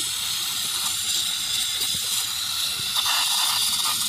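Aerosol carburetor cleaner spraying in one long, steady hiss through the carburetor's fuel passages to flush out dirt and debris.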